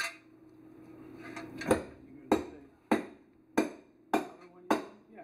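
Metal tapping on the steam engine's low-pressure piston as it is eased into the cylinder with its rings. There are six sharp, evenly spaced strikes, a little under two a second, each with a short metallic ring, starting under two seconds in.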